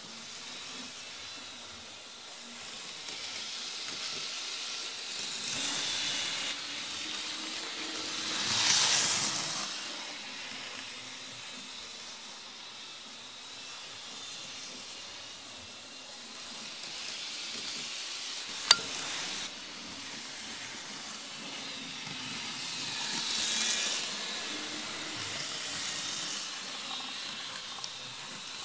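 Model DD51 diesel locomotive running on model railway track: a light, hissing whir of its small motor and wheels that swells twice as the locomotive passes close by. A single sharp click comes about two-thirds of the way through.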